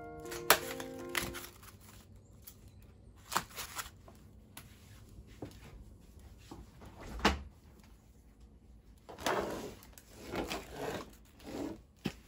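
Background music that stops about a second and a half in, then plastic food packs and tubs being set into a clear plastic storage basket: light knocks and clicks, one louder thump about seven seconds in, and crinkling of plastic packaging near the end.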